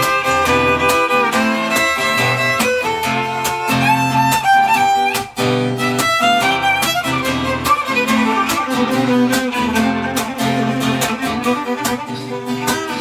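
Violin playing a melody of held, gliding notes over rhythmic strummed guitar chords.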